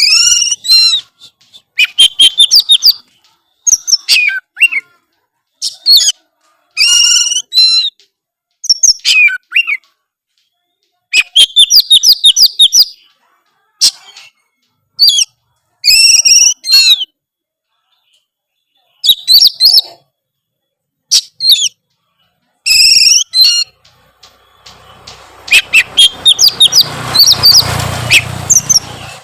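Oriental magpie-robin (kacer) singing loudly in short, varied phrases of whistles and quick trills, full of mimicked notes (isian), with brief pauses between phrases. From about 25 seconds in, a hiss and a low hum rise under the song.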